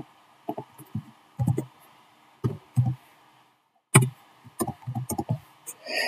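Computer keyboard keystrokes, an irregular run of about a dozen short taps while a short file name is typed.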